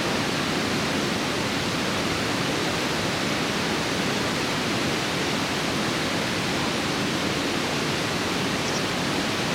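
Steady rushing of river water pouring over a weir.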